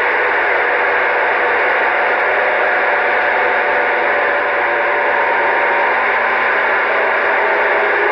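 CB radio receiver hiss on an open channel: a steady, even static with a few faint steady tones mixed in, and no one transmitting.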